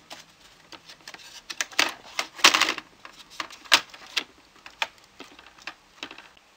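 Irregular plastic clicks, knocks and short scrapes as an Acer Aspire 5742G laptop motherboard is pushed and pressed into place in its plastic base, the loudest scrape about two and a half seconds in.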